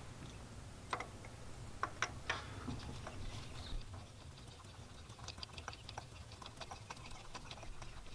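Faint, scattered metallic clicks and ticks of hand tools and a socket as a new iridium spark plug is handled and fitted, a few single clicks at first, then a denser run of small ticks.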